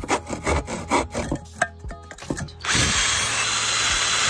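Draper Venom handsaw cutting through softwood timber in a series of quick strokes. Just under three seconds in, a power drill starts and runs steadily as its bit bores into the timber; this is the loudest part.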